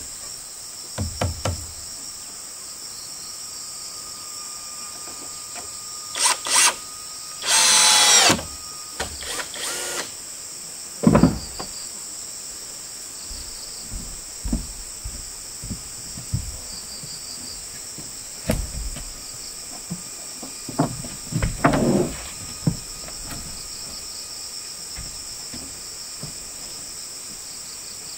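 Steady high-pitched insect chorus, with a few short bursts of tool noise on top. The longest and loudest burst lasts under a second, about eight seconds in.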